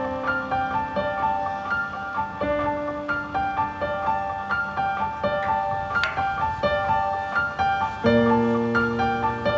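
Background keyboard music: a quick, even run of notes over held lower chords that change every second or two.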